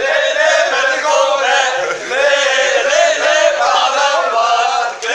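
A group of young men singing a chant together loudly.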